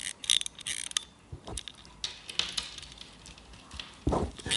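Elgin Type A-8 navigation stopwatch being wound by hand: its winding ratchet gives a run of sharp clicks, a few a second, then falls to much fainter ticking after about a second.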